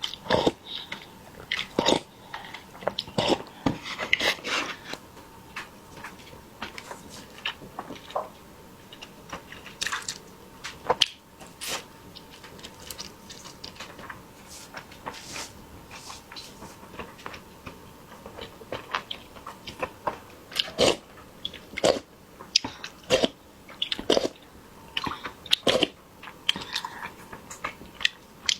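Close-miked eating: chewing with many irregular wet mouth clicks and smacks, over a faint steady hum.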